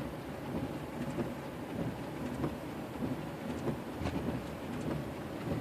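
Four-wheel-drive vehicle heard from inside the cab, a low uneven rumble with scattered light knocks and clicks.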